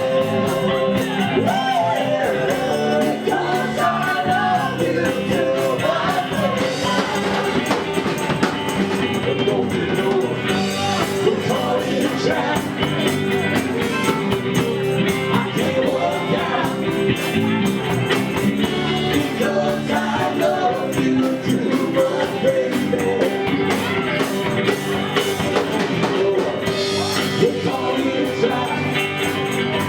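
Live rock band playing in a bar, with a singer, guitar and drums.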